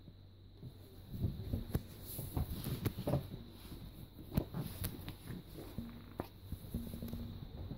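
Bed sheet rustling, with irregular soft thumps and scuffs as a long-haired cat pounces and scrambles on it while the sheet is moved.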